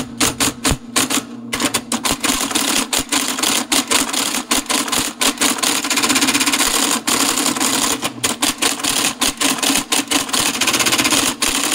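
IBM Selectric typewriter, driven by a computer as a teletype, printing at full speed: a rapid, continuous stream of typeball strikes over a steady hum, broken by a few brief pauses. It is printing neofetch's output, escape codes and all, which it cannot interpret.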